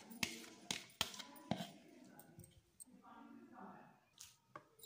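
Kitchen utensils knocking against a steel cooking pot, four sharp clicks in the first second and a half, then faint indistinct voices in the background.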